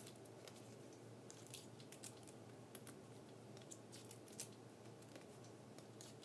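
Near silence with faint, scattered small clicks and rustles of a paper transfer sheet and heat tape being handled on a tabletop.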